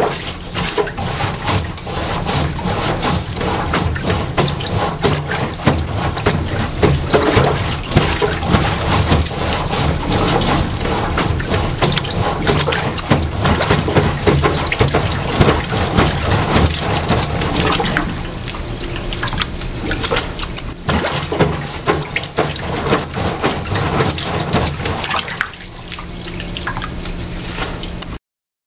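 A rubber plunger worked up and down in a sink full of liquid: continuous sloshing and splashing at the drain, broken by many sharp irregular clicks. It softens for a few seconds about two-thirds of the way in and again near the end, then cuts off suddenly.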